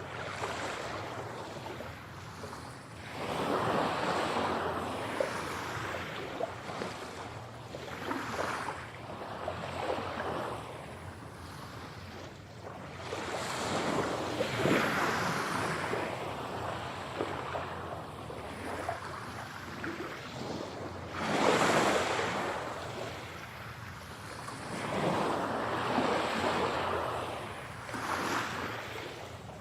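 Sea waves breaking and washing on a shore, each wave a hissing surge that swells and fades every few seconds, the largest about two-thirds of the way through.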